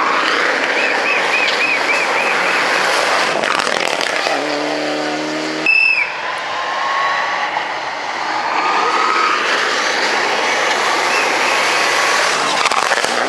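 Rally cars at full speed on a wet gravel stage: engines revving hard, their pitch rising and falling through the gears, over a steady hiss of tyres on loose gravel and mud. After a brief break near the middle, another car approaches with its engine rising in pitch.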